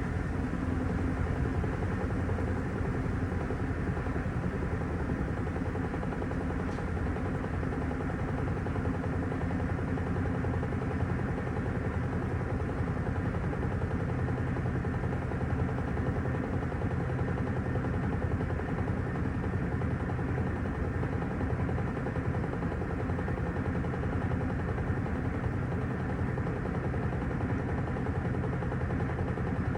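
Panasonic top-loading washing machine running, its motor giving a steady hum.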